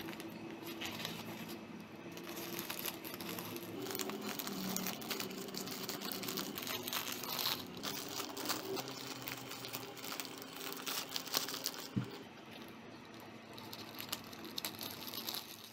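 Thin clear plastic snack bags and disposable plastic gloves crinkling and rustling as they are handled, in irregular small crackles that thin out near the end.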